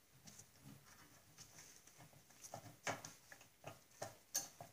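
Faint clicks and light metallic knocks of a steel gear puller's jaws being hooked onto and shifted around an engine flywheel, with a few sharper clinks in the second half.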